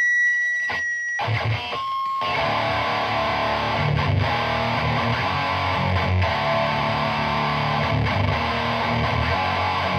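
Electric guitar through a Lone Wolf Audio Left Hand Wrath distortion pedal with its modern setting off, giving a heavily distorted 'chainsaw' metal tone. It opens with a thin high tone for about a second, then goes into dense, palm-muted chugging chords from about two seconds in.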